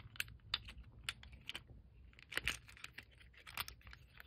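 Faint clicks and taps of hard plastic as an action figure's armor pieces are handled and pressed back onto its body, with a louder cluster of clicks about two and a half seconds in.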